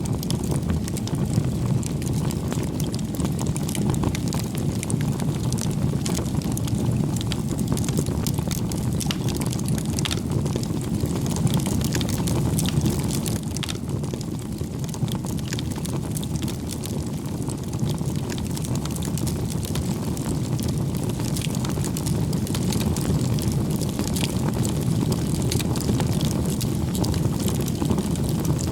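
Wood bonfire burning: a steady low rush of flame with frequent sharp crackles and pops from the burning wood.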